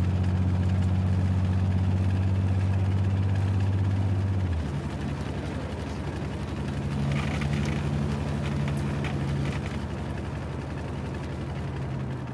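Steady low drone inside a moving car from the engine and road. About four and a half seconds in the deepest hum cuts off suddenly and the sound drops in level, leaving a slightly higher, quieter hum.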